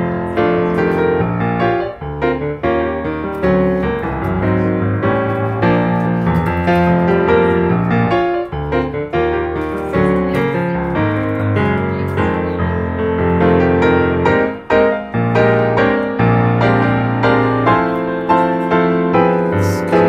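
Piano music, many notes in close succession.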